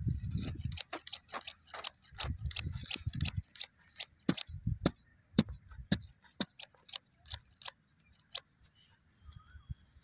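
Irregular sharp clicks and soft low thuds as rolls of grass turf are handled, unrolled and pressed down onto bare soil. The clicks are thickest in the first half and thin out after about seven seconds.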